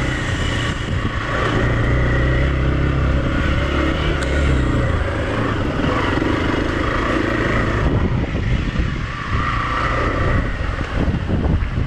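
Single-cylinder engine of a Hero XPulse 200 motorcycle running on a rough off-road trail. It holds a steady low drone for the first four to five seconds, then turns rougher and noisier.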